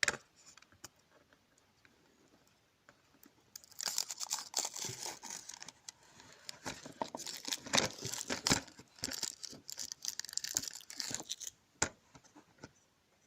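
Thin protective plastic film being peeled off a welding helmet part, crackling and crinkling with many small sharp snaps. It starts about four seconds in and dies away a couple of seconds before the end.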